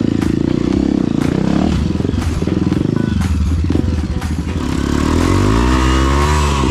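Dirt bike engine running at low revs along a rough trail, with knocks and rattles from the bike. About five seconds in, an engine revs up and then drops back.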